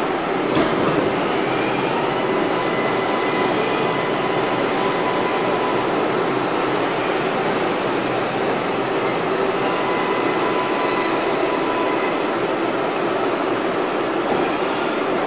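Subway train running through a tunnel, heard from inside an R142A car: a steady rumble and rattle of wheels on rail, with faint thin wheel squeal coming and going as the car takes the tight curve of the City Hall loop. A sharp knock about half a second in.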